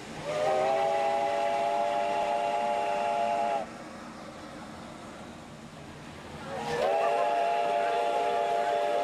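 Steam locomotive's chime whistle sounding two long blasts, a chord of several notes, each scooping up slightly as it starts. The second blast begins a little past the middle.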